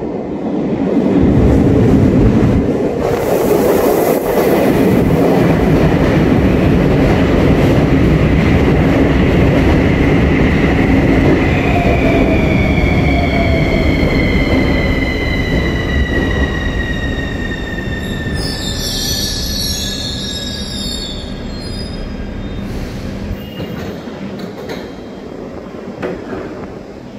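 CAF metro train braking into a station. The wheels and running gear make a loud rumble, and from about halfway the electric drive gives a whine that falls steadily in pitch as the train slows. About two-thirds through comes a short, high squeal, and the sound grows quieter toward the end.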